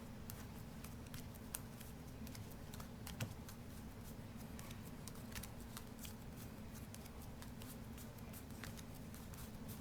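Playing cards being sorted by hand, cards pulled out of the deck one by one with an irregular scatter of soft clicks and flicks, over a steady low hum.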